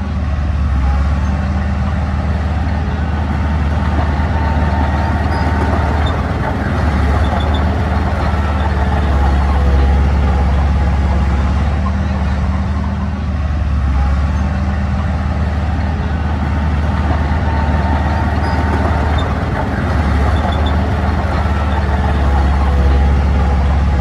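Diesel engine of heavy earthmoving equipment running steadily at working speed, a deep rumble that eases briefly about every six or seven seconds.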